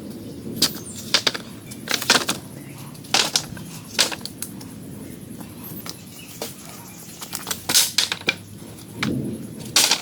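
Hand tools striking wood: a series of sharp, irregular knocks, some in quick pairs and clusters.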